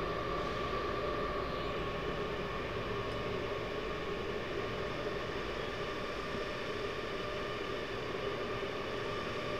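Go-kart running around an indoor track, heard from on board: a steady motor whine over constant low noise.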